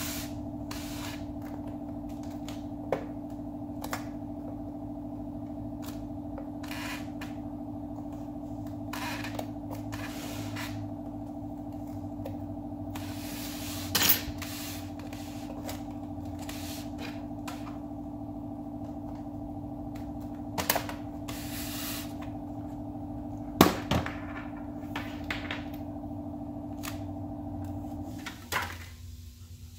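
Plastic clicks, taps and scrapes as a Nissan Frontier instrument cluster is taken apart by hand with a small screwdriver, its lens and housing clips being worked loose; the loudest are a sharp snap near the middle and another about three-quarters through. Under it runs a steady hum that drops away near the end.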